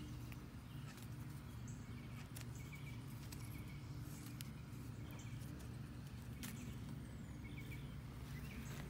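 Faint outdoor ambience: small birds chirping now and then over a steady low hum, with a few sharp light clicks.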